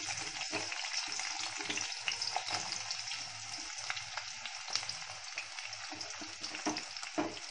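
Onion frying in hot oil in a deep pan: a steady sizzle with scattered small pops and crackles.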